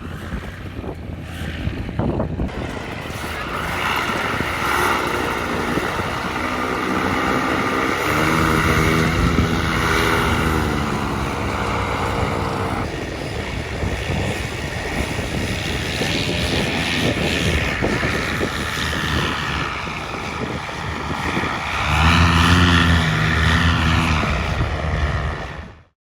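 Polini Thor two-stroke paramotor engine running with its propeller, revved up about eight seconds in and again near the end, then cut off suddenly.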